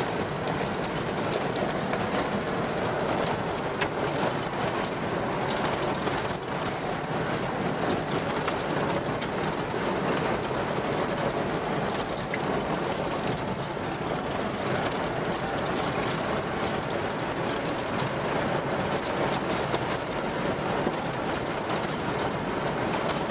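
Steady in-cab road noise of a vehicle driving over a corrugated dirt track, with the tyres and body running over the rough surface at an even level.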